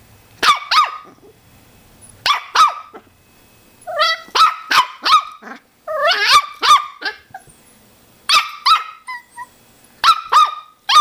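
A puppy play-barking: short, high-pitched yips in quick runs of two to four, repeating every second or two.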